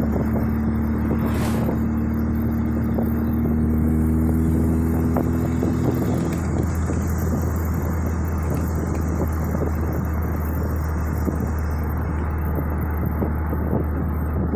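Porsche 356 Speedster replica with a Beetle-type air-cooled flat-four engine, driving with the top down, heard from the open cockpit with a constant low road and wind rumble. The engine note rises gently over the first six seconds and then drops away, leaving mostly road and wind noise.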